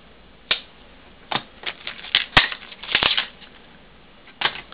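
Plastic retail packaging being pulled and cracked open by hand to free a small padlock: a string of irregular sharp cracks and crinkles, a few short rustles among them.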